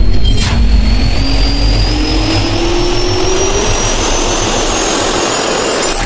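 Jet turbine spool-up sound effect for an animated logo intro: loud rushing air with two whines rising slowly in pitch, and a sharp hit about half a second in.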